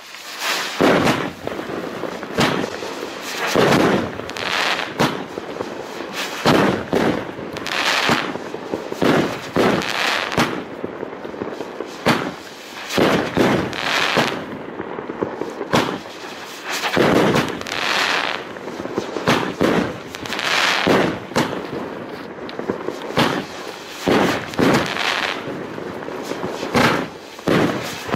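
A 19-shot, 25 mm fireworks cake firing, one shot about every second or so, each a sharp bang as the shell bursts, with a steady hiss from the burning effects between shots.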